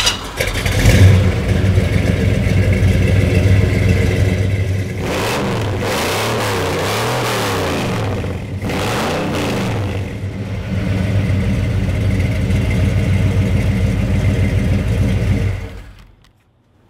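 1978 Ford F-150's 460 cubic-inch big-block V8 running loud through a full exhaust, revved several times in the middle with the pitch rising and falling, then settling back to a steady run and stopping near the end.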